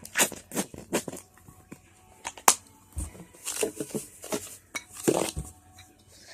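Spoon clicking and scraping against a bowl while stirring a thick slime mixture: a string of irregular sharp clicks with a few longer scrapes about halfway through and near the end.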